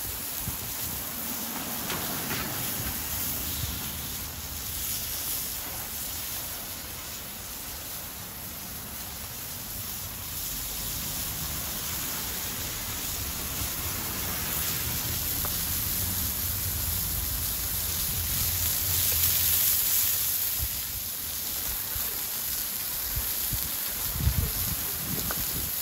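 Coarse sausages sizzling in a frying pan held over a wood fire, with the fire burning and rumbling under it. Near the end the pan is set down with a single knock.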